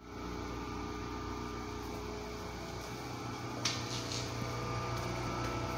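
Steady low hum with several fixed tones. About two thirds of the way in there is one sharp click, followed by a few brief hissy scrapes.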